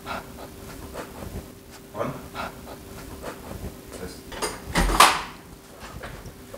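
Light knocks and clicks of dishes and kitchenware being handled, with one louder knock about five seconds in, over a faint steady hum.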